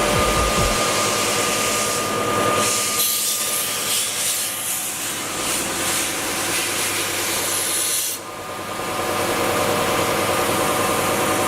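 Timesaver 37-inch single-head wide belt sander running steadily with a 76-grit belt. From about two seconds in until about eight seconds in, a plasma-cut 16-gauge mild steel part passes under the belt, and a loud grinding hiss covers the machine's hum as the dross is sanded off.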